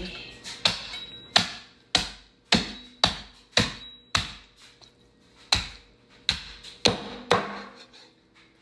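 Heavy cleaver chopping through a raw whole turkey onto a plastic chopping board: about a dozen sharp thwacks, roughly one every half second, with a pause of about a second halfway through.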